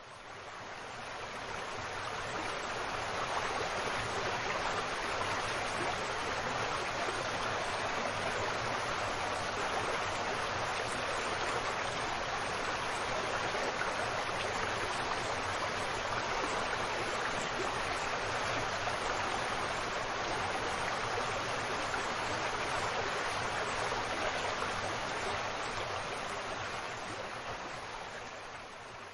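River water flowing with a steady rushing sound. It fades in over the first couple of seconds and fades out near the end.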